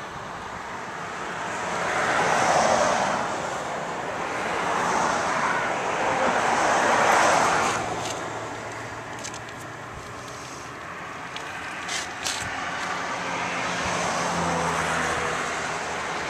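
Vehicles passing by, their noise swelling and fading several times, with a few faint clicks in the middle.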